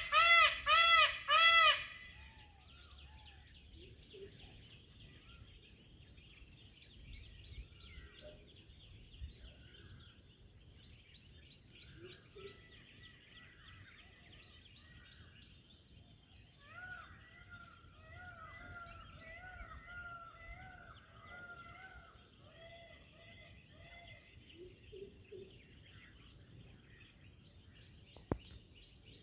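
A peacock calling loudly, a quick run of short honking calls for about the first two seconds. After that, small birds chirp over a steady high whine, and a fainter run of peacock calls comes about two-thirds of the way through.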